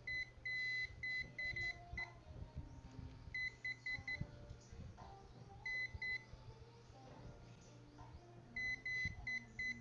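Multimeter continuity tester beeping: short beeps of a steady high tone in groups of three to five, with one longer beep near the start and pauses of a second or more between groups. Each beep marks the probes touching two points that are electrically connected while the cable wires are traced.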